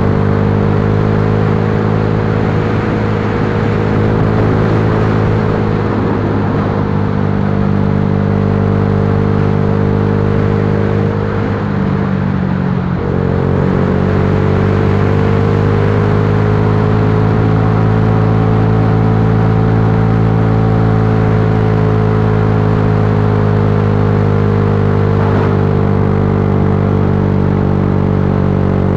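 Yamaha Lagenda 115Fi's single-cylinder four-stroke engine running while riding, over a steady rushing noise. The engine pitch sags early on, drops sharply about eleven to thirteen seconds in as the throttle comes off, then climbs again and holds.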